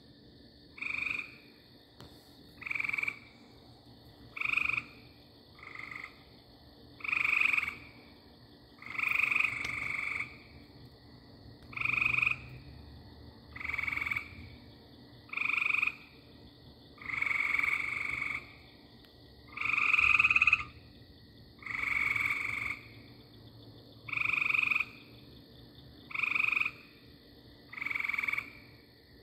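A frog calling over and over, about fifteen calls, one every one and a half to two seconds, some short and some drawn out.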